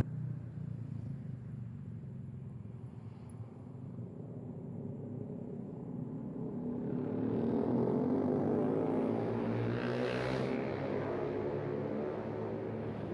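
A motor vehicle's engine and tyres drawing closer, loudest about ten seconds in, then easing off a little, over a steady low traffic hum.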